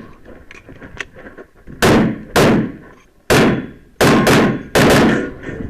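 Handgun fired rapidly in a practical-shooting course of fire: about seven sharp shots. The first two come about half a second apart near two seconds in, then single shots, and a quick burst of four near the end.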